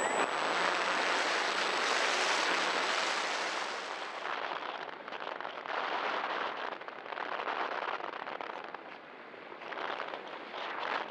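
Wind rushing and buffeting over the microphone of a radio-controlled glider's onboard camera in flight. The noise is loudest for the first four seconds, then drops and comes in uneven gusts.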